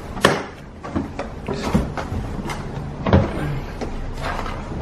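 Irregular hard plastic knocks, clicks and scraping as a Karcher WD2 wet-and-dry vacuum cleaner is opened up and parts are handled inside its container.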